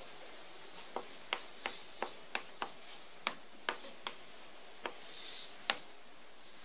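Chalk tapping on a blackboard while characters and a box are written: about a dozen sharp clicks, irregularly spaced, over a few seconds.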